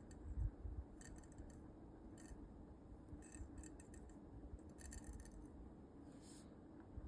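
Faint, scattered small clicks and short scraping snips, as of a thin fixed-blade knife being handled or cutting, with a few soft low thumps.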